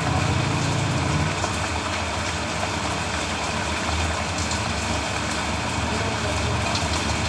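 Steady rain falling on a road surface, with a low vehicle engine hum underneath that eases a little over a second in.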